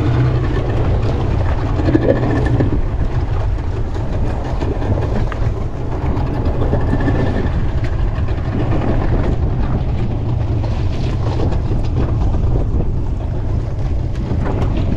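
Wind buffeting the microphone as a steady low rumble, over a wash of sea and waves around a small fishing boat in 20-knot winds.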